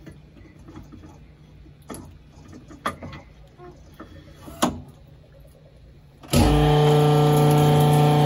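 A faint steady hum with a few light metal clicks and knocks, then about six seconds in the Sunnen CV616 vertical honing machine starts suddenly and runs with a loud, steady multi-tone hum as it hones the engine block's cylinder bore.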